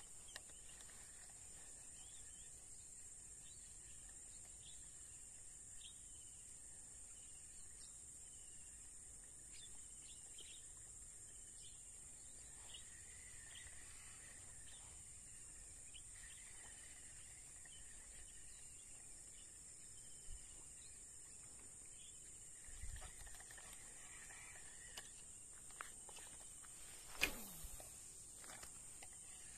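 Faint outdoor ambience: a steady high-pitched insect drone, with many short, high, falling chirps scattered through it. There is a single sharp knock near the end.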